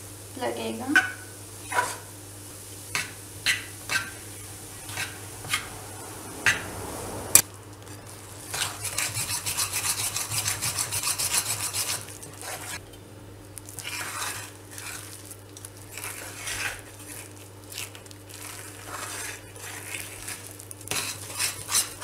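Metal spatula stirring and scraping besan (gram flour) roasting in ghee in an aluminium pan: separate scrapes and taps against the pan, then a run of fast, continuous stirring from about 9 to 12 seconds in, then lighter scraping again. The constant stirring on low heat keeps the flour from sticking to the bottom as it browns. A faint steady hum sits underneath.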